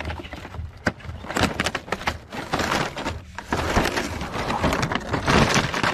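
Cardboard toy box being opened by hand and its clear plastic blister tray pulled out, with continuous crackling and crinkling of card and thin plastic.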